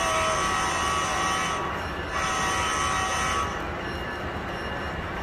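Two signal blasts played through the small speaker of a sound-equipped HO scale model locomotive: a first blast of nearly two seconds, then a second, shorter one about two seconds in, over a steady background hiss.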